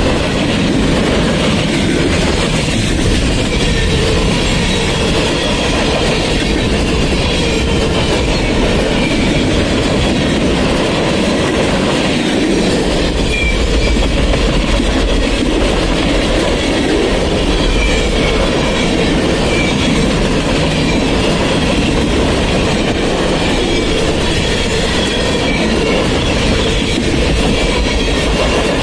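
Freight train cars rolling past close by: steady, loud rumble of steel wheels on the rails, with short faint squeals now and then.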